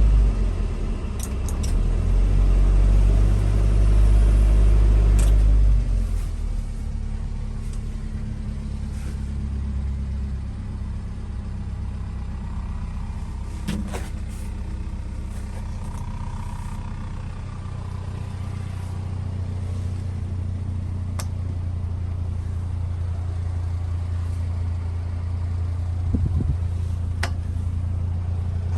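1995 Subaru Sambar mini truck's EN07 four-cylinder engine held at raised revs for the first several seconds, then dropping back to a steady idle.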